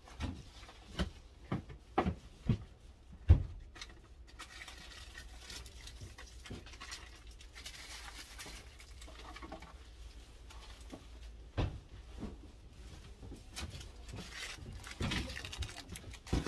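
Handling noises at a work table: a run of knocks and taps in the first few seconds, the loudest about three seconds in, then soft rustling. Near the end comes a rustle of ribbon being pulled off a roll.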